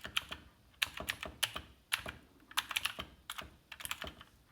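Aukey mechanical keyboard being typed on: quick runs of key clicks in short bursts, with brief pauses between the bursts.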